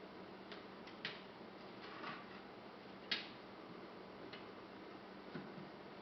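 Cornish Rex kitten playing: scattered light taps and clicks, about one a second, the sharpest about three seconds in, over a faint steady hum.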